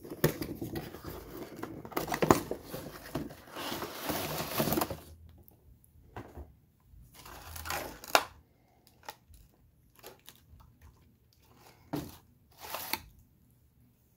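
Cardboard packaging being handled: a box flap opened and a cardboard tray slid out, giving several seconds of continuous scraping and rustling, then scattered short rustles and light taps of cardboard and tissue paper.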